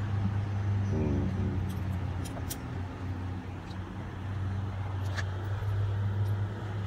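Steady low machine hum throughout, with a few light clicks.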